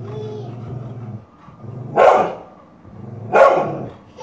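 A dog barking twice, about two seconds and three and a half seconds in, with a low growl before and between the barks.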